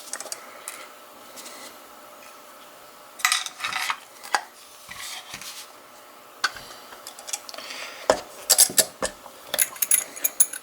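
Small metal clicks and clinks as a pinning board and the opened Mul-T-Lock cylinder with its pins are handled. They come in irregular flurries, one a little after three seconds in and a denser run from about eight seconds on.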